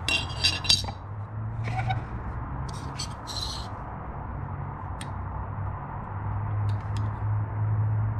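Laser-cut aluminum bracket plates clinking and sliding on a wooden bench as they are handled and measured with digital calipers: a few bunches of light metallic taps in the first few seconds, then a few small isolated clicks, over a steady low hum.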